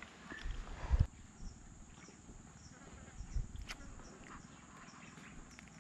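Steady high-pitched insect drone of a swamp forest, with faint regular chirps about twice a second. A low thump from the gear being handled about a second in is the loudest sound.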